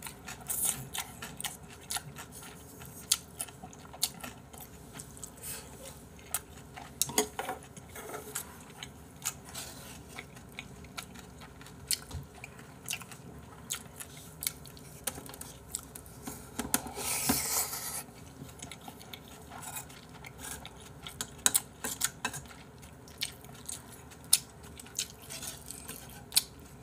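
A person chewing and biting mouthfuls of braised chicken and rice, with chopsticks and a spoon clicking against ceramic bowls. The clicks are the loudest sounds. There is a brief louder noise about two-thirds of the way through.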